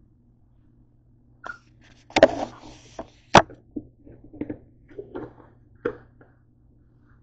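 Irregular knocks and clatter of things being handled and set down on a hard kitchen countertop, with two sharp loud knocks about two and three and a half seconds in.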